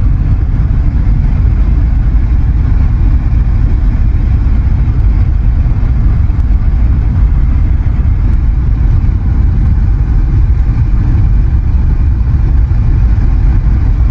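Cabin noise of a 1998 Buick Riviera with the supercharged 3.8-litre V6 cruising at road speed: a loud, steady low rumble of road and engine noise that holds even throughout.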